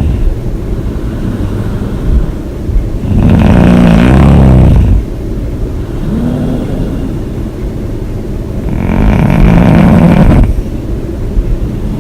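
A woman snoring hard: two long, loud snores about five and a half seconds apart, with quieter breathing between.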